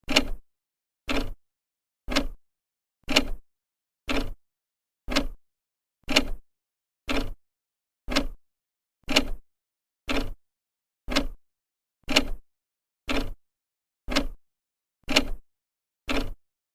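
Old clock's second hand ticking, one sharp tick a second, evenly spaced.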